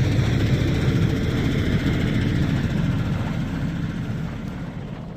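Heavy truck's diesel engine running with a steady low rumble, fading out near the end.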